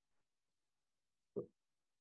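Near silence, with one short, low sound about one and a half seconds in.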